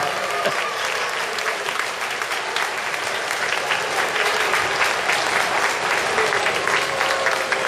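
Football stadium crowd clapping steadily in applause of a goal just scored, easing a little in the first couple of seconds.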